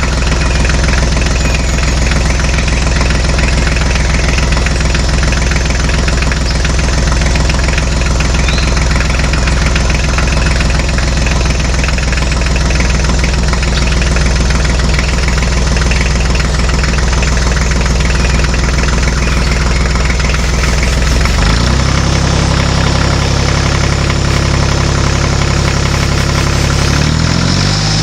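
Tractor engine running steadily. Its pitch steps up suddenly about three-quarters of the way through, and again near the end.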